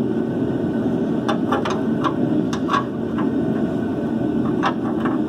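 Hand tools on a rusty shock-mount bolt: a scattering of short, sharp metal clicks from a wrench and socket, over a steady low background noise.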